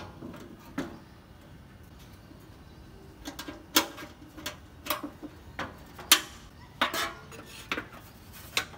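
Thin sheet-metal parts of a portable charcoal grill clanking and knocking as its lid and slide-out tray are handled. There are a couple of knocks at first, then a run of sharp metallic clanks from about three seconds in.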